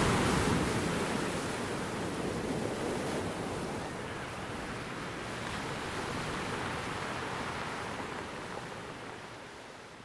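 Slightly choppy sea: waves washing in a steady rush that swells and eases slowly, fading out near the end.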